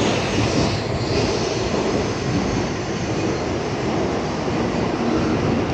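Tokaido Shinkansen bullet train running alongside the platform as it pulls into the station: a steady rushing noise of wheels and air.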